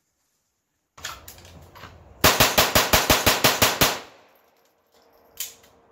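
Sig Sauer (GSG-made) 1911-22 .22 LR semi-automatic pistol fired in a rapid string: about a dozen sharp shots in under two seconds, roughly seven a second, evenly spaced.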